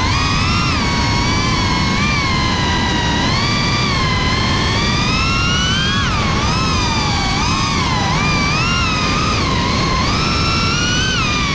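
Brushless motors and propellers of a GEPRC Cinelog 35 FPV drone whining under a rush of prop wash and wind, the pitch rising and falling constantly with the throttle, with sharper dips about six to eight seconds in.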